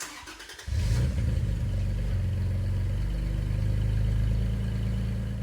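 A Toyota Tacoma's 3.5-litre V6 starting up through an MBRP 3-inch catback exhaust. The starter cranks briefly, the engine catches under a second in and settles into a loud, steady low exhaust note that swells a little and then eases off near the end.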